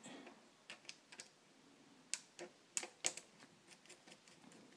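Scattered light clicks and taps of 3D-printed plastic clamp parts being handled while the removable clamp head is fitted back onto its bar, a few sharper clicks about two to three seconds in.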